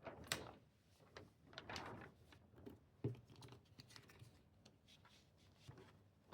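Faint rustling and a few light taps of rhinestone template sheets being handled and flipped over on their hinge to line up the layers.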